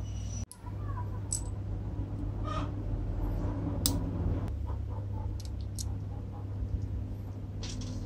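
Occasional light clicks and taps of small steel parts from an air impact screwdriver's hammer mechanism being handled, over a steady low hum. The sound drops out briefly about half a second in.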